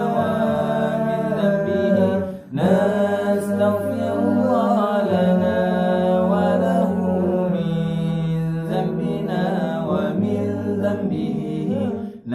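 Nasyid vocal group singing, a winding melismatic melody over a steady low held tone, with a short break about two and a half seconds in.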